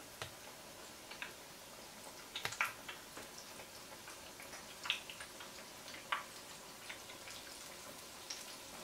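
Battered banana slices frying in a pan of oil: a faint steady sizzle with scattered crackles and pops.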